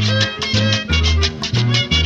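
Instrumental passage of upbeat Colombian guitar music: brisk strummed guitars over a bass line moving between notes about twice a second, with no singing.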